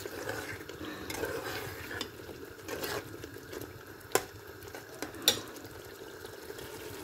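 A spoon stirring and scraping a masala of onions, spices, tomatoes and green chillies frying in a pan, with a faint frying hiss underneath. The spoon knocks sharply against the pan twice, about four and five seconds in.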